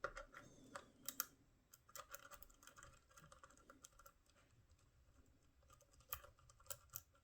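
Faint, irregular small metallic clicks and scratches of a tool working in a cheap Diesha tubular disc-brake lock, a little louder about a second in.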